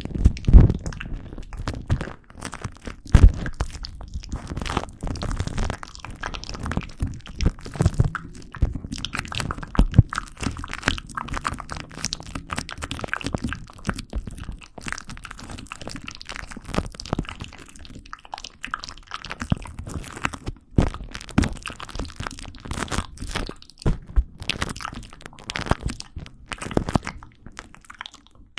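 Close-miked ASMR trigger sounds: a run of irregular crunches, crackles and sharp clicks.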